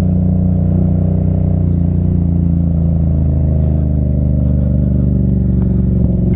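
Motor vehicle engine running steadily while on the move, a constant low drone with a faint clatter over it.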